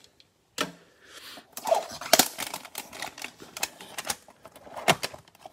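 Cardboard trading-card hanger box being opened and handled by gloved hands: an irregular run of clicks, taps and rustles from the cardboard flaps and the plastic-wrapped card stack inside. The loudest clicks come about two seconds in and again near the end.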